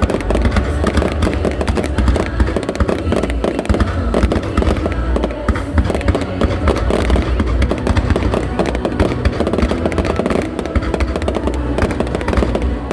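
Fireworks display: a dense, continuous run of cracks, pops and low booms, with music playing underneath.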